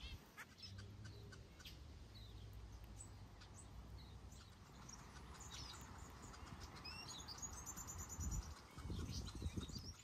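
Many small aviary finches chirping and calling in short, scattered high notes, with a quick high trill about three-quarters of the way through. A low rumble swells under them near the end.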